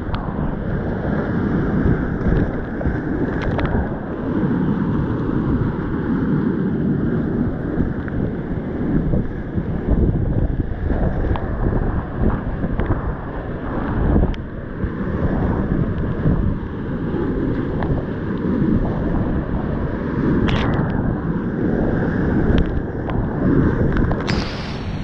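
Loud, steady roar of big whitewater rapids in high flow, heard from a kayak running them, with water and air rushing over the helmet camera's microphone. Short splashes of paddle strokes and breaking waves come through it, and near the end the bow plunges into a wave in a big splash.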